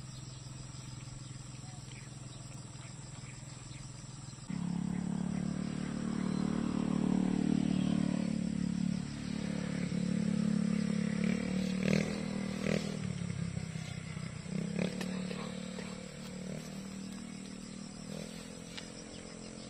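A small engine comes in suddenly about four seconds in and runs with a wavering pitch, then fades over the last few seconds. A few sharp clicks sound in the middle.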